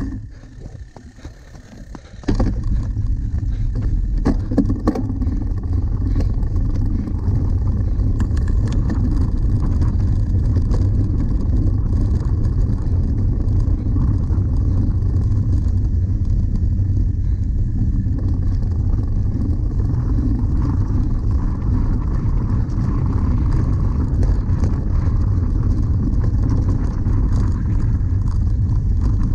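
Wind buffeting the microphone of a camera riding on a cyclocross bike, mixed with tyre rumble over bumpy grass: a loud, steady low rumble. It is much quieter for the first two seconds, and a few sharp knocks come as the bike jolts over the ground.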